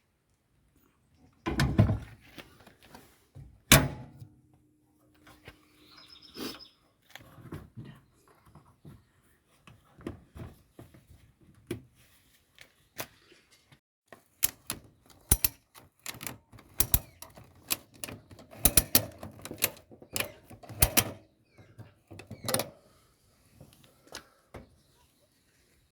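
Irregular sharp clicks and knocks, with two heavy thumps in the first few seconds and a busier run of clicks later on.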